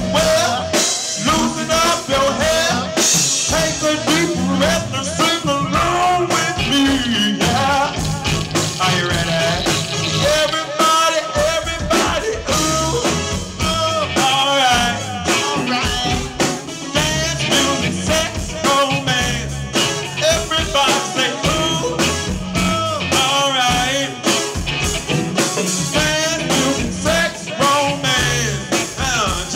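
Live band performing: a male lead singer sings with wavering, drawn-out notes into a microphone over drum kit and electric bass.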